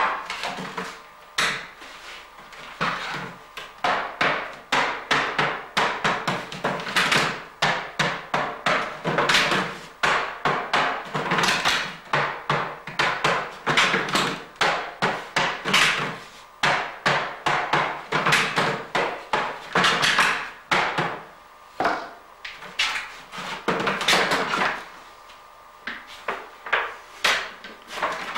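Hammer blows on a wooden herring barrel as it is set up, the staves and hoops being knocked into place, coming in quick runs of several knocks a second with short pauses between.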